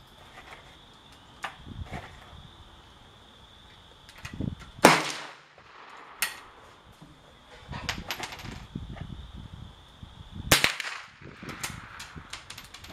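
.22 rimfire gunshots: two loud, sharp cracks about five seconds and ten and a half seconds in, with several fainter cracks scattered between them.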